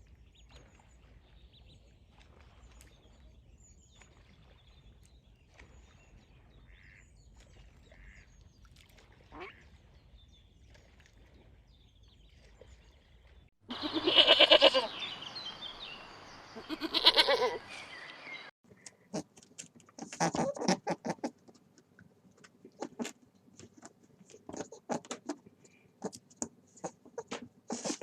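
Ducklings peeping faintly, then from about 14 s loud duck quacking in two stretches. From about 19 s, rabbits make quick clusters of crackling clicks and rustles.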